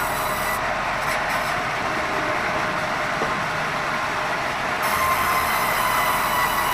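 Sawmill band saw running and sawing red meranti wood, a steady mechanical noise with a faint high tone. The highest sounds fall away for a few seconds and come back about five seconds in, when it grows slightly louder.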